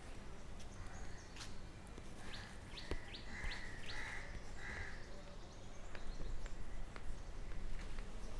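Small birds chirping, with a quick run of short rising chirps a couple of seconds in, over a low steady hum of street background noise.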